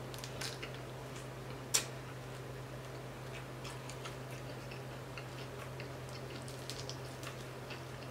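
Crispy fried tilapia being eaten by hand: scattered small crackles and clicks as the crisp skin is bitten and picked apart, with one sharp crunch about two seconds in. A steady low hum runs underneath.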